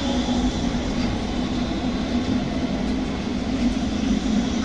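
Tram rolling past close by, its wheels running on the rails with a steady noise.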